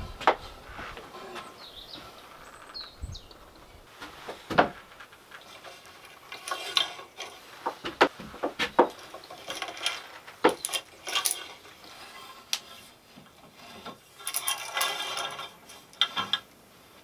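Wooden curtain rings and rod knocking and clacking together as the rod is handled and set into its brackets: scattered sharp knocks, with a longer run of rattling as the rings slide together near the end.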